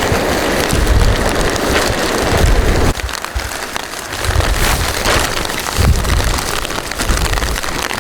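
Rain falling steadily, with uneven low rumbles underneath. The rain drops suddenly in level about three seconds in.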